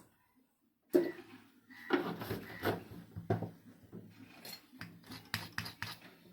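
Hand work on small hard parts at a workbench: silence, then a sharp click about a second in, followed by scraping and rubbing and a quick run of clicks and taps near the end.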